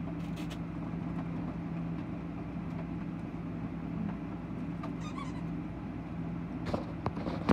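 Steady low mechanical hum from a household appliance, with faint rustling and a few soft clicks and knocks near the end.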